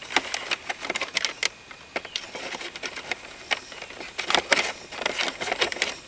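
Wiring being pushed by hand into an opening in a plastic center console: irregular clicks, scrapes and rustles of wire and connectors against the plastic.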